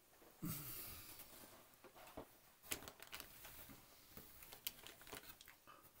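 Plastic model-kit parts and sprues being handled: a faint rustle and crinkle about half a second in, then a few scattered light clicks and taps.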